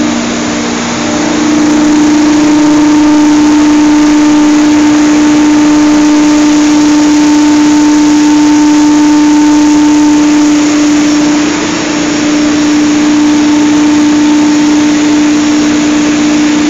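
Industrial centrifugal blowers and plant machinery running: a loud, steady drone with a strong hum tone over an even rushing noise.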